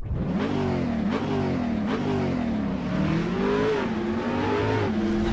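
An engine revving up and down over and over, its pitch rising and falling about once a second.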